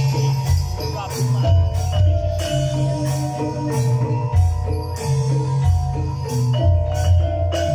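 Live jaranan gamelan music: metallophones playing a melody of ringing notes over deep low notes, with sharp percussion strikes at a steady beat.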